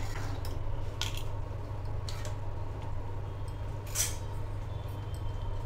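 A steel fork and a wire-mesh strainer clink and scrape against a pan as boiled noodles are lifted out of their cooking water. There are a few short, sharp metallic clinks, the loudest about four seconds in, over a steady low hum.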